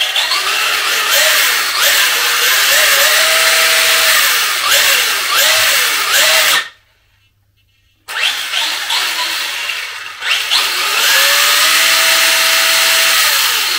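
Electric motor and drivetrain of a Traxxas Fiesta ST Rally RC car whining as the throttle is worked with the wheels spinning freely, the tyres ballooning at speed. The pitch rises, holds and falls away with each throttle pull. It stops for about a second and a half midway, then comes back with one long held rev near the end.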